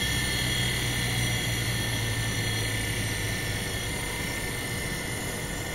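Hard-disk spindle motor running under a self-oscillating Stingo driver circuit: a steady hum with a thin high whine over it. The low hum fades about three seconds in as the drive frequency is turned down.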